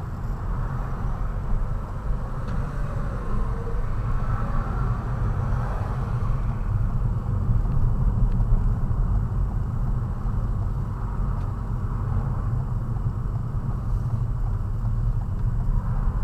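Steady low rumble of a car's engine and road noise heard from inside the cabin while the car drives slowly.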